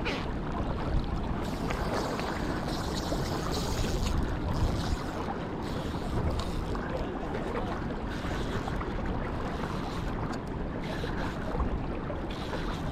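Steady wind noise buffeting the microphone, over water lapping and moving in the shallows.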